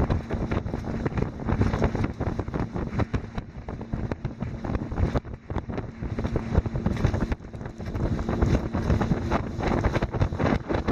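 Wind buffeting the microphone in uneven gusts, with a faint steady low hum underneath.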